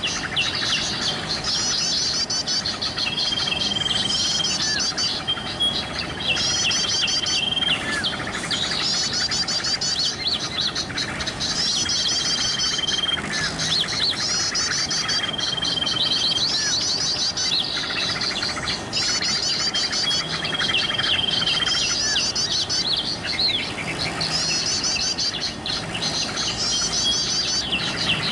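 Sooty-headed bulbul (kutilang) singing actively, in short, high, rapid phrases that repeat about every two seconds, many led by a brief steady whistle.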